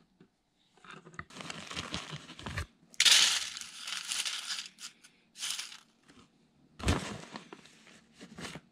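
Aluminium foil crinkling and rustling as cherry-wood smoking chips are sprinkled onto it by hand, in several bursts. There is one sharp knock about seven seconds in.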